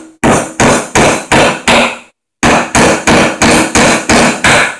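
Framing hammer driving a nail into wood: about a dozen loud, steady blows, about three a second, with a short pause a little before the middle.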